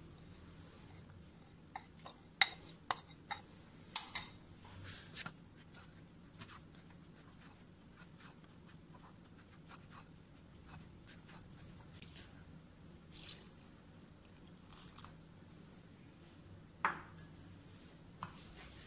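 Scattered clinks and knocks of utensils and bowls against a glass mixing bowl as dry ingredients are tipped in and stirred, the sharpest about two and a half and four seconds in and again near the end.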